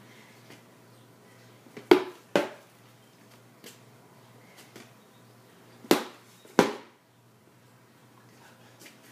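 Rattan sword blows landing on a pell: four sharp strikes in two pairs, about half a second apart within each pair, the first pair about two seconds in and the second about six seconds in.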